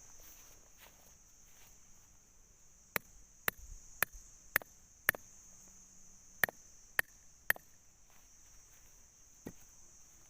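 Steady high-pitched chorus of crickets or other insects. Over it comes a run of sharp knocks, five about two a second, then three more after a short pause, and a single fainter one near the end.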